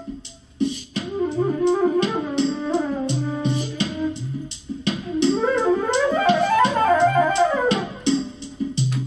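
Flute playing a melody over a backing track with a steady drum beat and bass. About five seconds in, it breaks into quick runs that climb and then fall.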